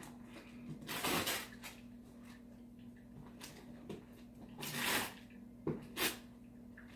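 Wrapping paper rustling and tearing as a gift is unwrapped, in a few short bursts: about a second in, near five seconds and again just after.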